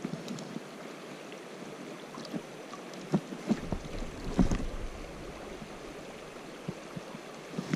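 Running river water with scattered sharp knocks and splashes. From about three and a half to five seconds in, wind buffets the microphone with a low rumble, the loudest part.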